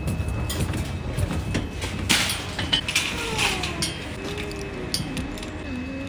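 Metal shopping trolleys rattling and clinking in a trolley bay, with a brief rush of noise about two seconds in.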